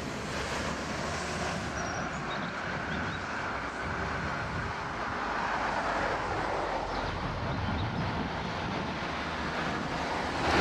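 The EMD two-stroke V12 diesel engine of a Class 66 freight locomotive running steadily as it hauls a train of covered wagons at low speed, growing a little louder about halfway through.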